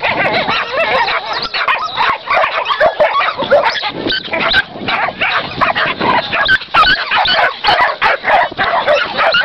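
A pit bull in a pulling harness yelping and barking without a break, in quick high-pitched bursts.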